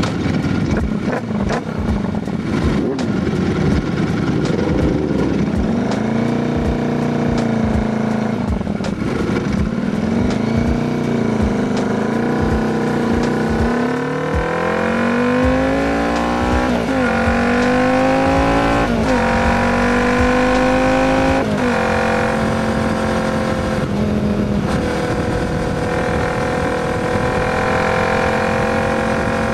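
Royal Enfield Continental GT 650's 648 cc parallel-twin engine through a Diablo full exhaust, ridden away and accelerated through the gears. In the middle the pitch climbs and drops back sharply three times at the upshifts, then holds steady at a cruise. Irregular sharp clicks and pops come through the first several seconds.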